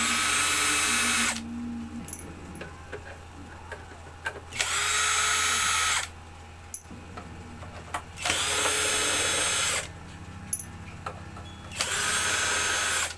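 Power drill running in four short bursts of about a second and a half each, driving out the screws that hold a UPS unit's case shut.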